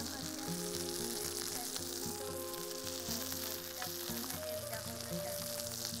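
Food sizzling and crackling as it fries in a pan, a steady hiss, under background music of long held notes.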